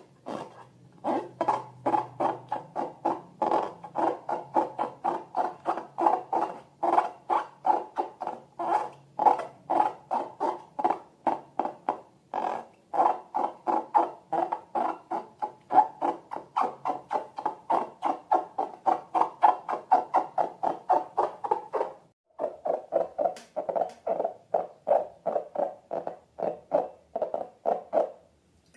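Rapid, even squeaking, about four squeaks a second. It breaks off briefly near the end and comes back lower in pitch.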